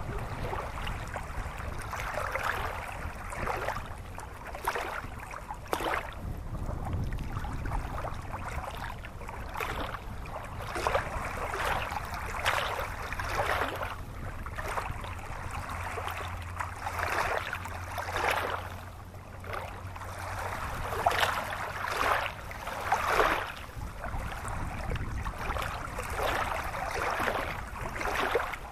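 Shallow stream running over stones: a continuous babble of water that swells and eases irregularly every second or two, with a low rumble underneath.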